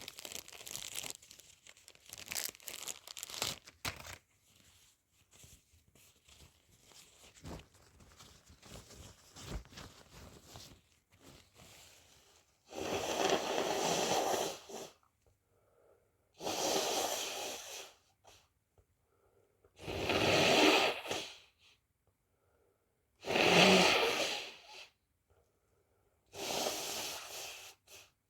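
Crinkling, crackling handling noise for the first few seconds, then a person sneezing five times, loud breathy bursts about every three and a half seconds.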